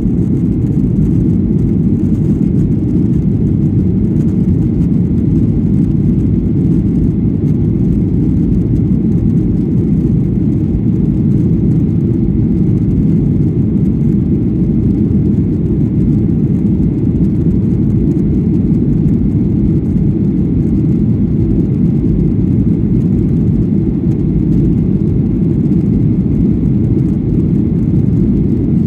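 Cabin noise inside a Boeing 737-800 climbing after takeoff: the steady, low-pitched sound of its CFM56-7B turbofan engines and the rushing air, heard through the fuselage.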